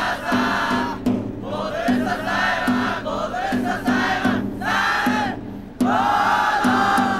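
A large group of students shouting a cheer-squad chant in unison, in loud phrases of about a second each with short breaks between, over a steady drumbeat.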